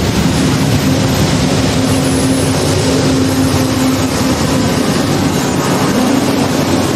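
Mid-train CSX diesel locomotives passing close by in a coal train: a steady engine hum over the continuous rumble of wheels on the rails.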